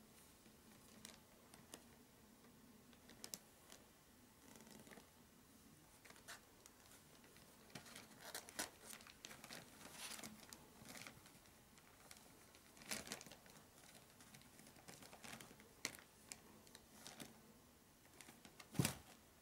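Faint rustling and crinkling of paper and plastic packaging with scattered light taps and clicks as young Maine Coon kittens move about and play on them. One louder knock comes near the end.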